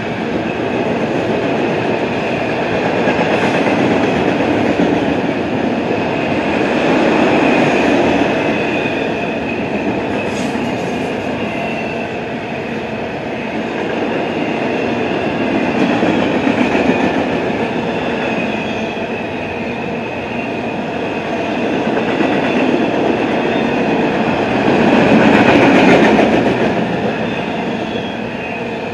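Double-stack intermodal freight cars rolling past close by: a steady rumble and rattle of steel wheels on rail that swells and eases as the cars go by, loudest shortly before the end. A faint high-pitched ringing runs over it.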